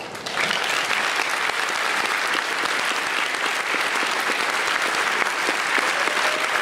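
Audience applauding: the clapping breaks out, builds within about half a second and then holds steady.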